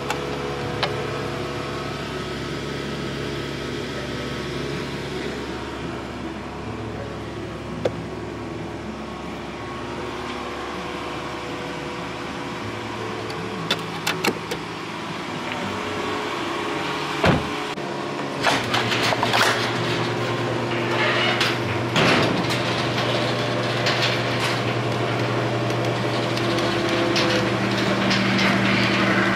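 A vehicle running with a steady engine and road hum, and scattered clicks and rattles. One sharp knock a little past the middle, with more clatter in the last third.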